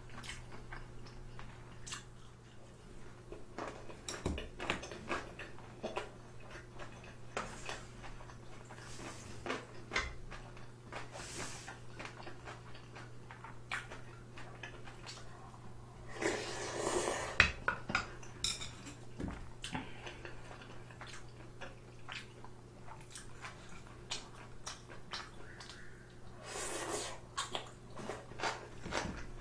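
Close-miked eating of kimbap and ramyeon noodles: wet chewing and many small clicks of chopsticks and a metal spoon against dishes. Noodles are slurped twice, a longer slurp about 17 seconds in and a shorter one about 27 seconds in, over a faint steady hum.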